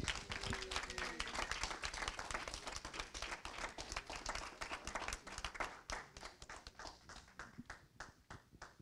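Small audience applauding: dense clapping that thins out to scattered claps over the last few seconds and stops near the end.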